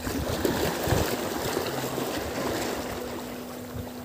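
Choppy water lapping, with wind noise and an irregular low rumble, and a faint steady hum underneath.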